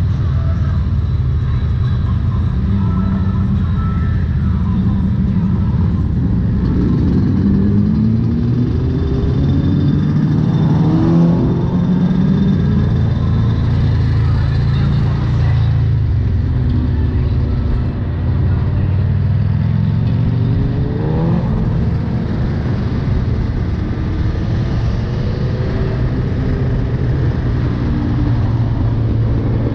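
Yamaha YZ125's single-cylinder two-stroke engine running while riding, its pitch rising several times as the throttle opens and it pulls through the revs.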